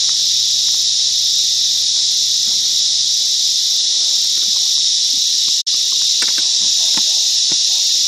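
A chorus of cicadas making a loud, steady shrill drone, deafening. The sound cuts out for an instant about two-thirds of the way in.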